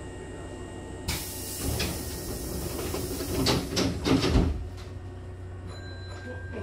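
Train's double sliding doors closing: a sudden hiss from the door engine about a second in, then a few thuds as the door leaves slide shut and meet, the loudest about four seconds in. A steady low hum of the standing train runs underneath.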